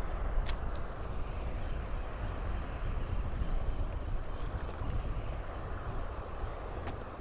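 Strong wind rumbling on the microphone over the wash of waves on a shallow reef, steady throughout; one short click about half a second in.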